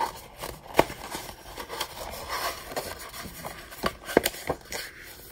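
Handling noise as a paper notebook is slid into the pocket of a leather folio: paper and leather rubbing, with a few sharp taps and knocks, the loudest about a second in and another near four seconds.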